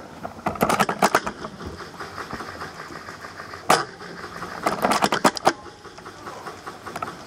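Bursts of sharp clicks and rattles: a quick run near the start, a single louder click in the middle, and another quick run about five seconds in, over a steady low hiss.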